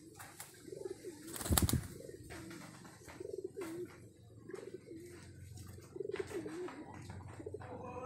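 Domestic pigeons cooing repeatedly, a steady run of short, low, warbling coos, with one brief loud noise about a second and a half in.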